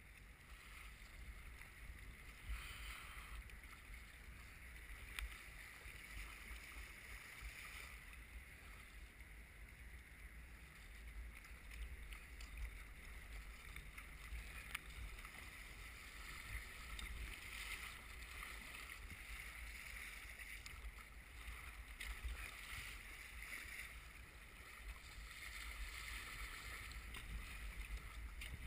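Eddyline Raven sea kayak paddled through choppy, wind-driven waves: water splashing and rushing along the hull with the paddle strokes, swelling and fading every few seconds. Low wind rumble on the microphone underneath.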